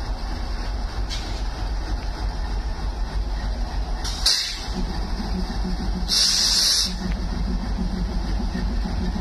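Indian Railways WDG3A diesel locomotive with its 16-cylinder ALCO engine idling with a steady low rumble. Two short bursts of air hiss come about four and six seconds in, the second longer and louder, and after the first the engine's beat turns to a steady throb.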